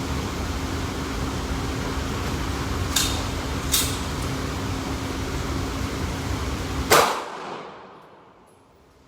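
Three gunshots over a steady hum of ventilation noise: two sharp cracks about three-quarters of a second apart, then a louder one about seven seconds in, after which the background noise falls away.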